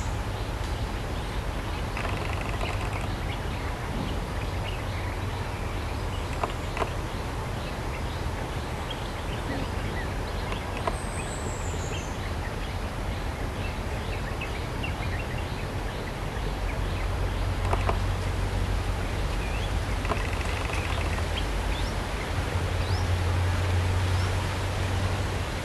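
Steady rushing outdoor background noise with a low rumble, over which faint short bird chirps come and go, and a thin falling whistle sounds about eleven seconds in.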